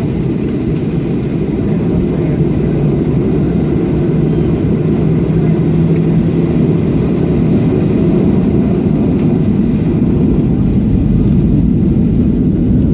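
Jet airliner taking off: a steady low engine rumble that slowly grows a little louder.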